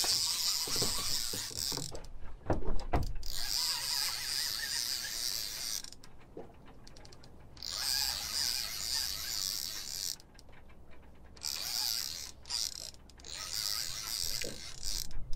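Fishing reel being wound in under the load of a hooked fish. The reel's whirring comes in several bouts of two to three seconds with short pauses between them, and there are a few loud knocks about two to three seconds in.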